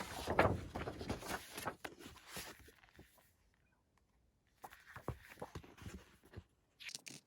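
Paper album inserts and packaging being handled: rustling with light taps and clicks, stopping for about a second and a half midway, then starting again.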